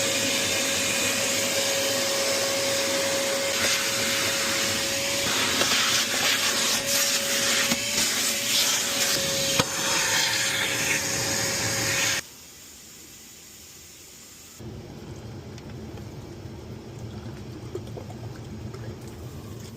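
A vacuum running steadily with a high whine, sucking out a clogged air-conditioner condensate drain line. The sound turns rougher for a few seconds in the middle and cuts off suddenly about twelve seconds in, leaving a much quieter background.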